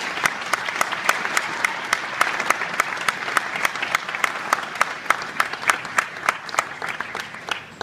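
Audience applauding, with one pair of hands clapping close by at about four claps a second over the crowd's clapping. The applause fades near the end and stops.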